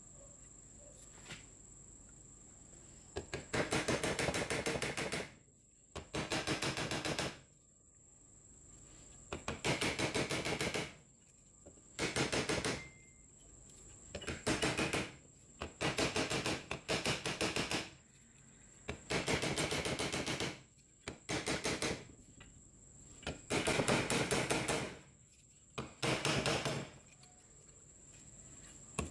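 Metal motor housing of an old Hitachi G13S1 angle grinder rapped hard and fast against the steel jaw of a bench vise to knock the armature loose. About ten bursts of rapid metal-on-metal knocking, each lasting a second or two, sit over a faint steady high whine.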